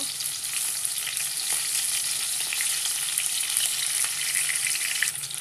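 Chunks of boiled green jackfruit sizzling and crackling steadily as they shallow-fry in hot oil in a nonstick wok, with a wooden spatula turning them.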